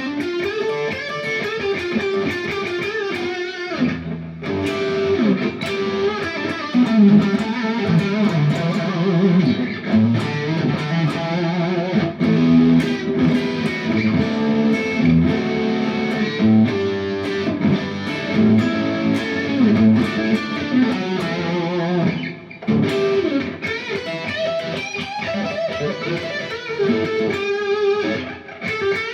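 Humbucker electric guitar on its neck pickup, played through a Little Jim MOSFET distortion pedal (three cascaded BS170 MOSFETs) into a Marshall amp and 4x12 cabinet: a bright, aggressive high-gain crunch. The playing is continuous, with short breaks about four seconds in and again near the twenty-two second mark.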